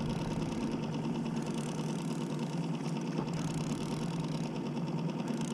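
Small 3-horsepower four-stroke outboard motor running steadily at low trolling speed.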